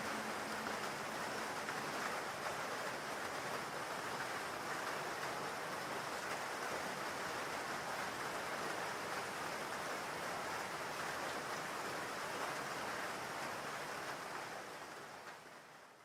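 Steady rain falling, an even hiss that fades out over the last second or so.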